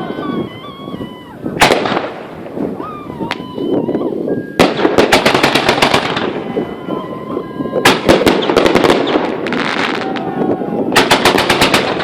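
Fireworks display: volleys of rapid bangs and crackling go off in several bursts, with thin whistling tones in the gaps between them.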